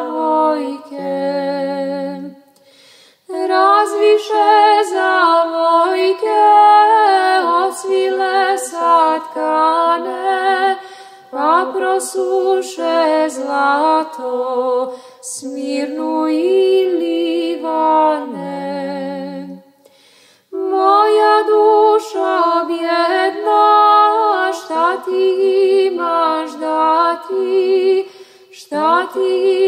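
Women's voices singing a hymn a cappella in harmony, in phrases separated by brief pauses.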